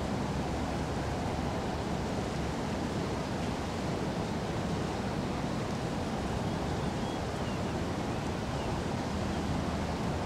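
Steady noise of river water flowing over a shallow stony bed.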